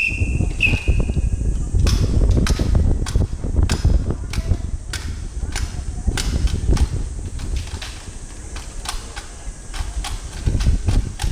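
A whistle sounds as two short blasts at the start, then sharp irregular clacks and slaps of drill rifles being struck, slapped and grounded by a drill team, over a steady low rumble.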